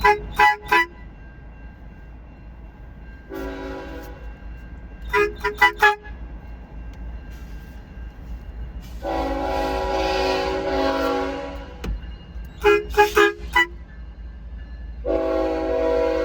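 A car horn and a diesel locomotive's multi-chime air horn answer each other. Three times a car horn gives about four quick toots. Each time the locomotive horn answers with a chord blast: first a short one, then one of about three seconds, then one that is still sounding at the end.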